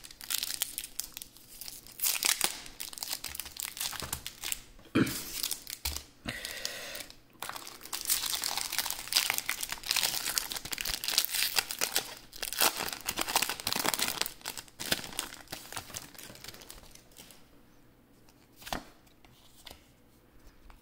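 Foil wrapper of a Pokémon booster pack being torn open and crinkled in the hands, in repeated bursts of crisp rustling. It quiets down near the end, with one sharp tap.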